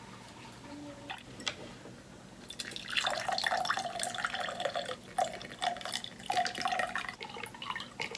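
Bottled iced tea poured into a glass, glugging and splashing from about two and a half seconds in.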